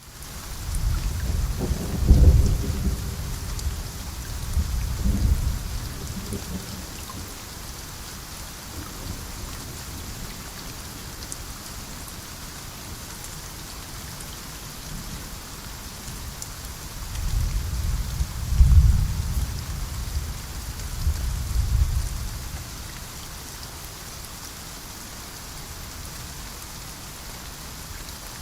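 Steady heavy rain with two long rolls of thunder, one rumbling in the first few seconds and another about two-thirds of the way through.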